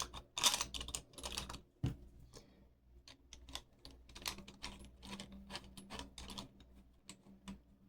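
Small metal lock parts clicking and tapping as a repinned Schlage lock is put back together by hand: a run of irregular light clicks, busiest in the first second, with a soft knock about two seconds in.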